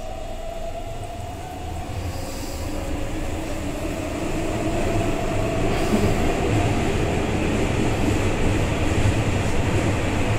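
Keihan 9000 series electric train heard from inside the passenger car, running through a tunnel: a steady low rumble of wheels on rail with a faint motor whine, getting louder from about four seconds in as the train picks up speed.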